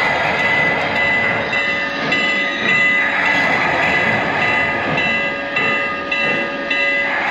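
Lionel Vision Line O-scale model of a Norfolk & Western Class A steam locomotive running with its train: a steady rolling rumble of wheels on track, overlaid with several steady high tones that break off and return.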